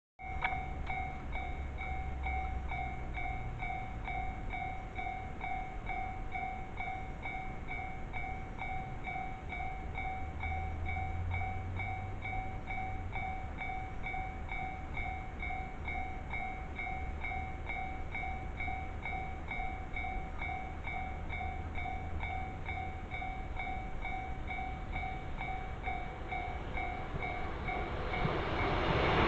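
Japanese railway level crossing's electronic warning bell ringing steadily, about two strokes a second, signalling an approaching train. Near the end the train's running noise rises.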